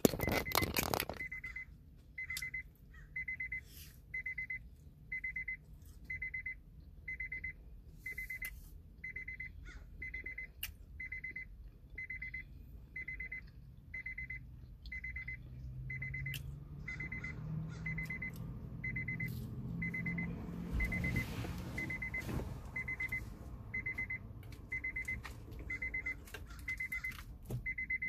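An electronic beeper sounding a steady high beep about once a second, on and on. A low rumble swells and fades in the middle, and there is a loud thump at the start and another at the very end.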